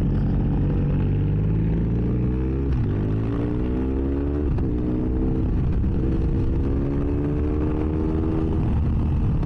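2006 BMW F800S parallel-twin engine through a GPR Furore exhaust with its dB killer removed, revving up under acceleration with two upshifts, the pitch dropping about 2.7 s and 4.5 s in, then pulling steadily and slowly rising. Heard from inside the rider's helmet, over wind noise.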